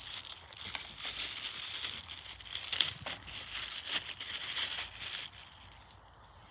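Crinkling and crackling, with a few sharp clicks, as firecrackers are handled and loaded into a toy washing machine; it stops about five seconds in.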